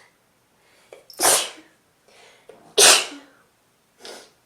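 A person with a head cold sneezing twice, about a second and a half apart, each sneeze preceded by a quick, audible intake of breath. A fainter breath comes near the end.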